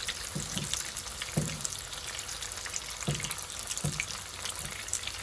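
Chicken pieces deep-frying in hot oil: a steady crackling sizzle with scattered spits and a few short low pops.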